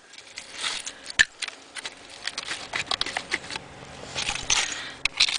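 Broken bottle glass clinking and crunching as it is dug through in soil packed with smashed bottles: a run of irregular clicks and short scrapes, with one sharp clink about a second in.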